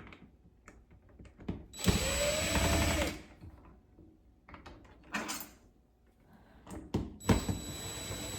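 Power drill/driver running in short bursts to back out the screws of a sliding glass door handle. One run a couple of seconds in has a rising whine, and another starts near the end, with small clicks and knocks of handling between them.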